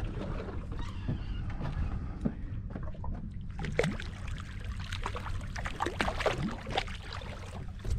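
A hooked fish splashing and thrashing at the surface beside a boat's hull as it is brought alongside: a run of short sharp splashes starting about halfway through, over a steady low rumble of wind and water.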